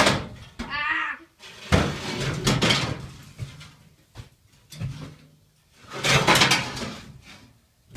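A rusty steel truck grille clattering and scraping against the panelled wall of a lorry's box body as it is lifted and shifted into place. There is a sharp knock at the start and two longer stretches of scraping.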